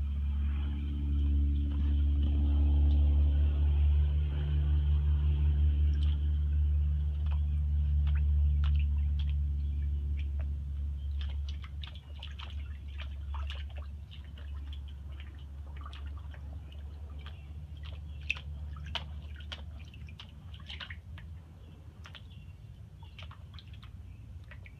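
A puppy pawing and splashing in rainwater held in an upturned garbage can lid, a run of small wet slaps, drips and splashes. A loud steady low hum runs under the first half and fades out about midway.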